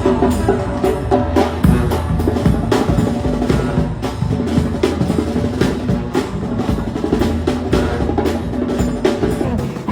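Music with a busy drum-kit beat, the drum hits coming thick and regular over sustained pitched instruments.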